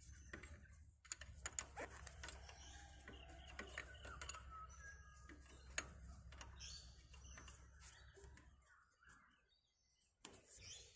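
Faint metallic clicks of an open-end spanner on diesel fuel injector line nuts as they are nipped up, with birds chirping in the background. A low steady hum fades out about three quarters of the way through.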